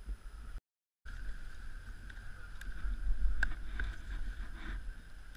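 Wind rumbling on a GoPro's microphone during a chairlift ride, with a faint steady whine over it and a few sharp clicks and knocks in the middle. The sound drops out briefly about half a second in.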